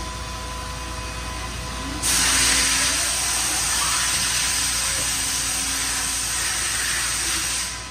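Flow IFB CNC waterjet firing its high-pressure cutting jet: a loud hiss that switches on suddenly about two seconds in, holds steady, and cuts off just before the end, over a steady machine hum.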